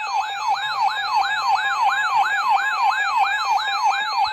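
Electronic siren-style alert tone yelping, its pitch sweeping up and down about three times a second over a steady held tone. It is the alarm that opens an emergency severe thunderstorm warning broadcast.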